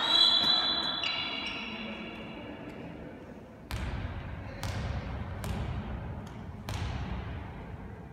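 A handball bouncing on the sports-hall floor about five times, roughly a second apart, each thump echoing in the large hall. Before the bouncing, a high ringing tone fades away over the first few seconds.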